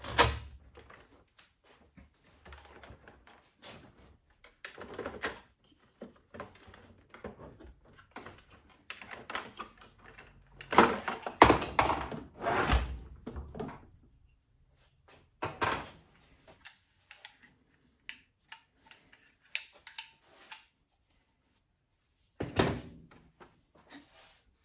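Handling noises from a bench repair: irregular thunks, knocks and clicks of hard parts being moved and set down, with a busy run of them in the middle and single louder thunks near the start and near the end.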